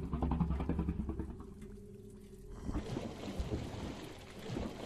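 Science-fiction film sound effects. A low rumble with a fast rattling chatter runs over it for about the first second and a half. Then a hissing wash sets in, with scattered clicks and knocks.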